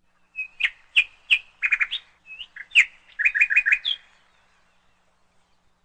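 Cucak ijo (green leafbird) calling in a series of short, sharp chirps, with two quick runs of three or four notes, stopping about four seconds in.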